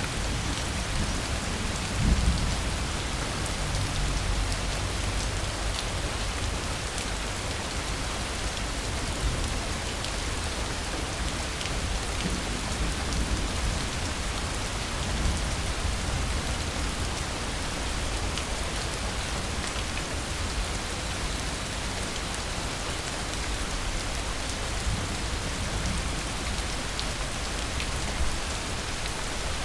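Steady rain falling, an even hiss with scattered drop ticks. A low rumble of distant thunder dies away in the first couple of seconds.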